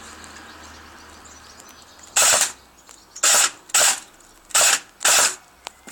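Battery-powered M249 airsoft gun firing five short bursts, a fraction of a second each, starting about two seconds in.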